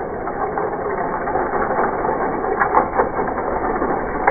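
Die-cast toy cars rolling down a drag-strip track: a steady rattle with several sharper clicks in the second half.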